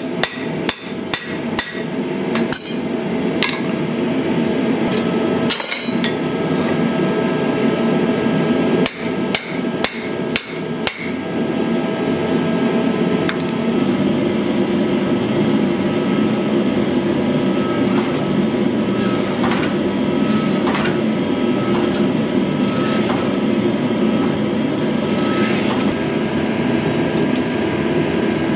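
Hand hammer striking hot steel on an anvil, quick ringing blows through about the first eleven seconds. After that a steady machine drone takes over, with a few scattered knocks, as the hot bar is worked between the dies of a forging machine.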